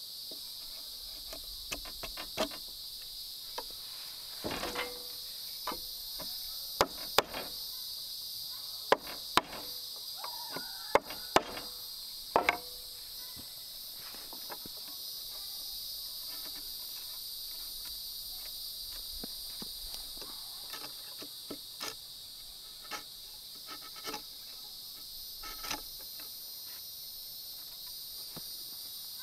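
Steady high-pitched chorus of crickets and other insects, with scattered sharp knocks and taps; the loudest knocks come in a cluster midway, several in quick pairs.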